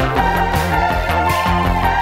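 Background music with a steady beat and sustained notes.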